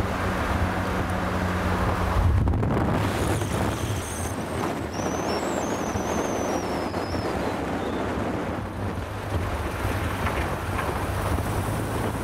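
Jaguar E-Type's straight-six engine running as the car drives along, with wind rushing over the microphone. The engine note shifts about two seconds in.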